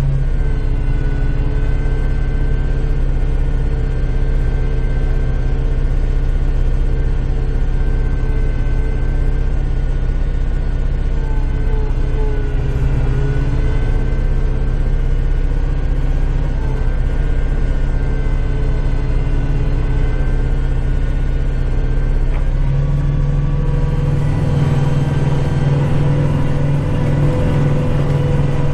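Kubota tractor's diesel engine running steadily while snowblowing, its pitch dipping slightly now and then. About 23 seconds in, the tone changes and the deep low end drops away.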